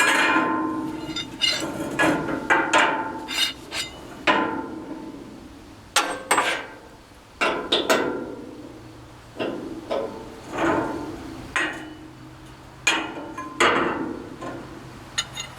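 Steel plate hooks clanking and ringing as they are handled and slid onto steel tubing: a dozen or so irregular metal strikes, each leaving a short ring.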